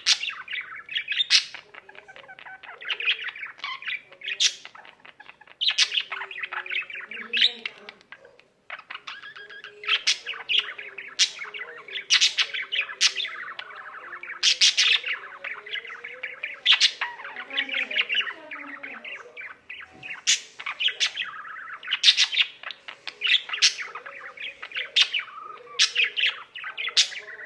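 Pet budgerigar singing its warbling song: a continuous chattering warble with sharp high chirps and clicks mixed in, breaking off briefly about eight seconds in.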